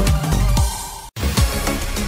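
Background music: a sung song fades out, there is a brief silent gap just over a second in, and an electronic dance track with a steady beat starts.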